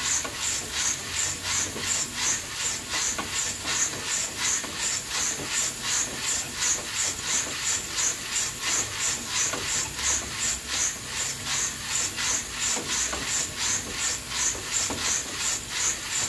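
Coffee beans roasting in an old coffee roaster on a wood-fired stove: a steady hiss with an even swish about three times a second as the beans are turned and tumble.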